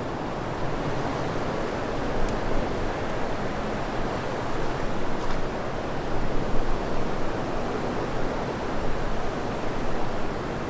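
Steady rush of fast, turbulent river water below a dam, an even noise with no pauses and a couple of faint ticks.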